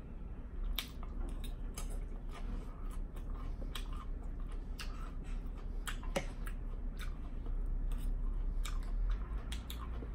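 Close-up chewing of a mouthful of Greek salad, with many sharp, irregular wet mouth clicks and smacks. A fork clinks and scrapes in the bowl about six seconds in.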